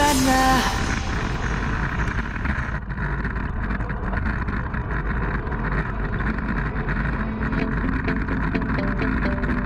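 Steady rush of wind over a bike-mounted action camera's microphone, mixed with road-bike tyre and drivetrain noise at about 40 km/h in a racing pack. The last notes of background music end under a second in.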